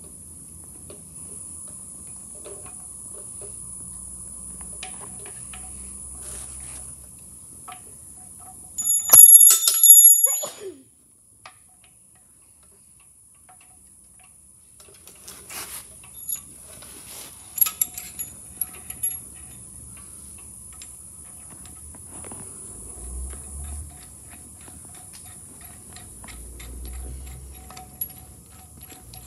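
Hand work fitting a harmonic balancer onto the crankshaft snout of an LS V8 engine: scattered light metal clicks and taps, with one loud ringing metal clang about nine seconds in. A faint steady high-pitched whine runs underneath.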